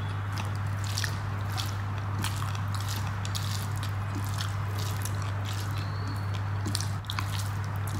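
Close-up eating sounds: wet, clicky chewing and smacking of a mouthful of rice, with the squish of rice being mixed by hand on the plate. A steady low hum runs underneath.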